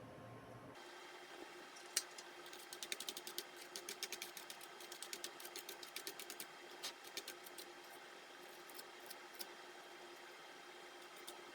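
Quick runs of small, light clicks and ticks from hand work on a laptop's plastic and metal parts, dense for several seconds and then sparser.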